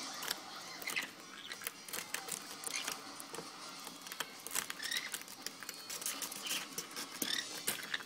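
Green-cheeked conures climbing on cardboard boxes: a busy run of scratching and clicking as claws and beaks grip the cardboard, with several short, high chirps scattered through.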